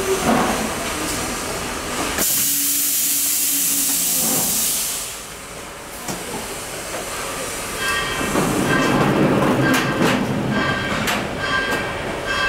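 Pneumatic large-format heat press: a loud hiss of compressed air venting starts about two seconds in and lasts some three seconds. From about eight seconds the machine runs with a mechanical rumble, overlaid by short repeated tones.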